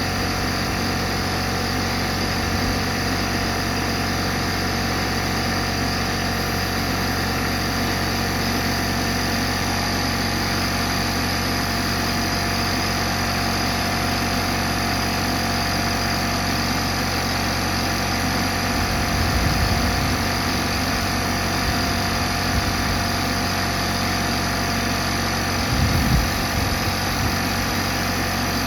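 A motor or engine runs steadily with an even hum, with a couple of brief low knocks, about two-thirds of the way through and again near the end.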